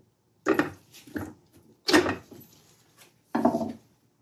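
Tools and parts handled and set down on a wooden workbench: four sharp clunks and clatters at uneven intervals, the loudest about two seconds in.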